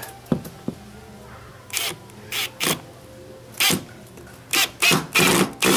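Bosch 18V cordless drill/driver running small screws briefly in and out of a pre-drilled wooden block, in about seven short bursts, the longest near the end. The driver bit in use is too big for these screws.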